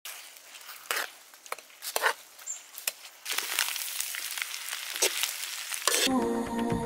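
Metal spatula scraping and clattering against a pan as shrimp and squid fry, then a steadier sizzle with the odd scrape as spaghetti is tossed in a wok. Music comes in about six seconds in.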